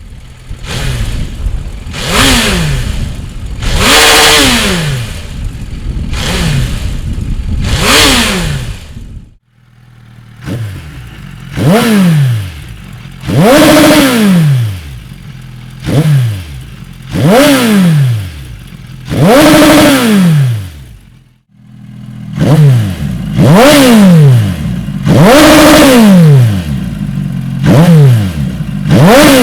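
Suzuki GSX 1250 FA's inline-four engine blipped repeatedly through its exhaust, each rev rising and falling quickly, about one every one and a half to two seconds. It comes in three takes split by two brief cuts.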